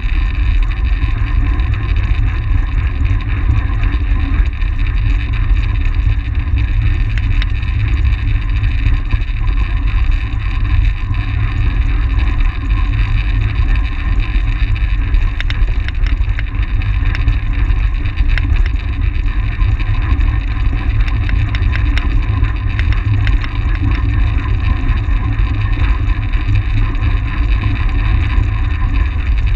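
Steady, loud wind rumble on an action camera's microphone from a track bicycle ridden at race speed, with the hum of the bike rolling underneath.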